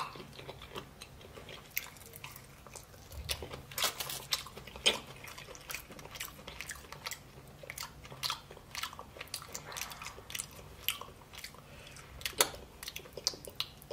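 A person chewing a mouthful of shrimp: irregular small clicks and smacks, a few a second, with one sharper click near the end.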